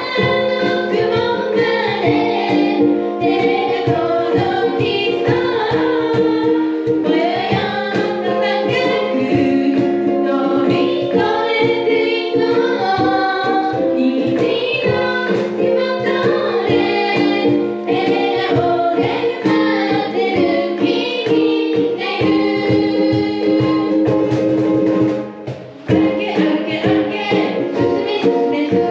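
A ukulele trio strumming a steady rhythm while singing together, a lively children's march tune. The music drops briefly about 25 seconds in, then picks up again.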